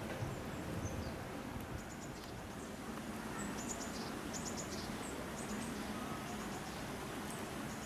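Small birds chirping: groups of three or four quick, high-pitched notes, repeated from about three seconds in, over steady outdoor background noise.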